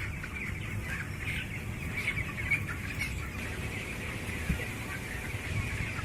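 A large flock of broiler chickens chirping and cheeping together in a continuous, overlapping chorus, with a low rumble underneath.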